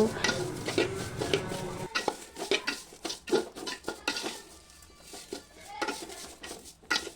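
A spoon knocking and scraping against a cooking pot in irregular clinks while ghee-fried vermicelli and sugar are stirred together.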